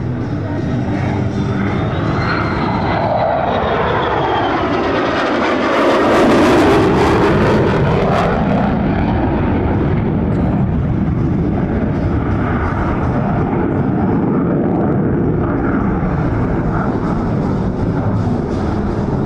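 Jet noise from an F-35A Lightning II's single F135 afterburning turbofan during a low pass. A falling tone sweeps down over the first few seconds, the noise is loudest about six seconds in, and then it carries on as a steady rumble.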